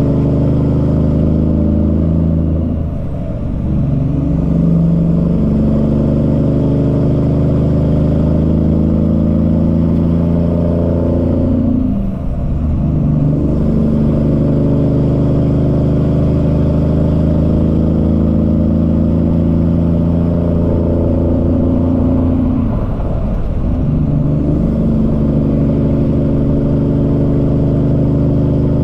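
Semi truck's Cummins ISX diesel pulling a load and working up through the gears: a steady engine note that drops and climbs back three times as it is shifted.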